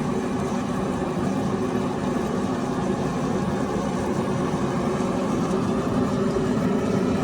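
Steady mechanical drone with a low hum, unchanging throughout.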